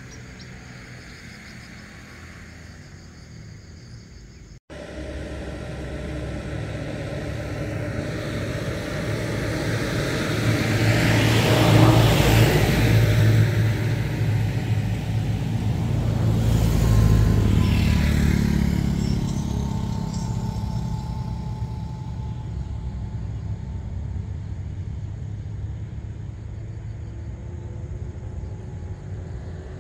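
Motor vehicles driving past: engine and tyre noise swells to a loud peak about twelve seconds in and again around seventeen seconds, then fades away. The sound cuts out for an instant about four and a half seconds in.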